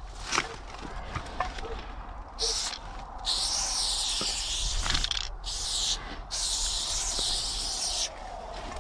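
Aerosol spray paint can hissing in several bursts of one to two seconds with short breaks, as outline lines are sprayed onto a wall. A few light taps and clicks come before the first burst.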